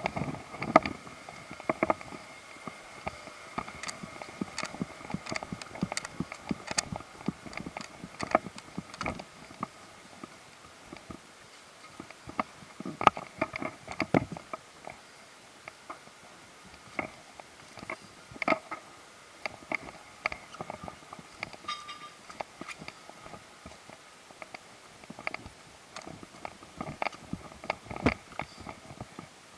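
Irregular crunches, clicks and knocks of footsteps and camera handling while walking over fallen leaves, branches and debris.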